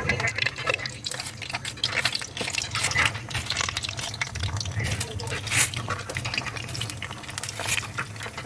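Breadcrumb-coated chicken chunks deep-frying in hot oil in a wok: continuous sizzling with dense crackling, over a low steady hum.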